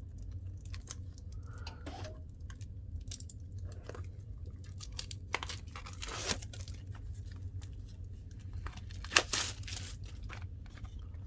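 Plastic shrink wrap on a Pokémon booster box being torn and crinkled off in scattered crackles and rips, the loudest about six and nine seconds in, over a steady low hum.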